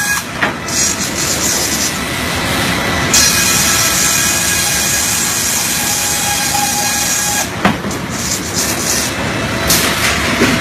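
Heavy machinery running with a steady rumble, a faint whine and a hiss that grows stronger in the middle stretch. There are two sharp knocks, one near the start and one later on.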